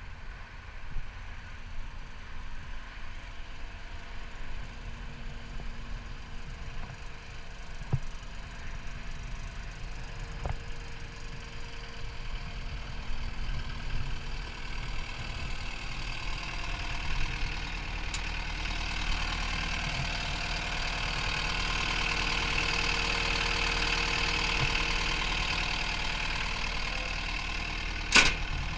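CAT 262D skid steer's four-cylinder diesel engine idling steadily, with a rushing hiss that swells through the second half. A single sharp knock comes near the end as a hand meets the rear engine door.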